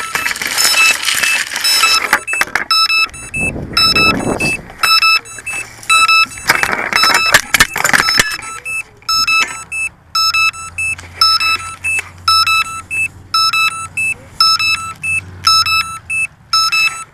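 A crashed drone's alarm beeper sounding short high electronic beeps, a little under two a second, while the drone is handled. Rustling from grass against the drone's microphone and handling noise fill the first half.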